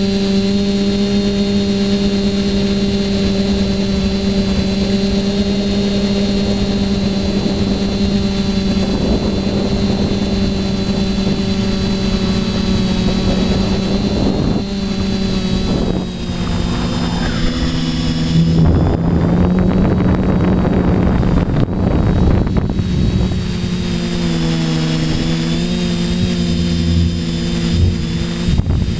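Quadcopter's electric motors and propellers humming steadily with several tones, heard from the camera on the craft. About halfway through the pitch drops and splits as the throttle changes, with a noisy rush of air for a few seconds, then the hum settles again.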